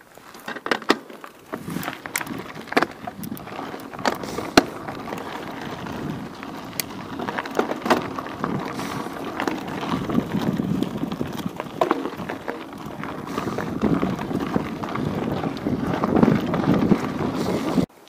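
Rough, rumbling noise of movement over an uneven path, with many sharp clicks and knocks and rattles, picked up close to the microphone. It swells in places and cuts off suddenly near the end.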